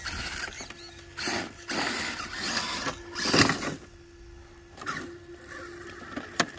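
Redcat Gen8 RC crawler's Hobbywing Xerun AXE brushless motor and drivetrain whirring in short bursts of throttle, tyres scrabbling on rock and dirt, as the toppled truck is worked back onto its wheels. A faint steady hum sounds between the bursts, and there is a sharp click near the end.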